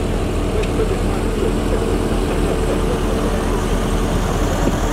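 An engine idling steadily, with an even low rumble and hum.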